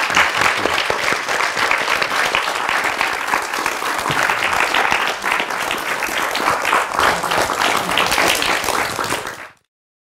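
Audience applauding, many hands clapping at a steady level; the applause fades out quickly near the end.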